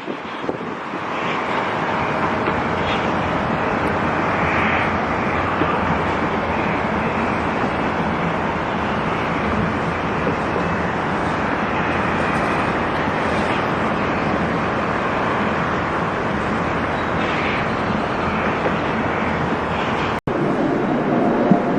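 Steady, loud rushing noise of a large vehicle, building over the first two seconds and then even, with an abrupt cut near the end to a similar rush.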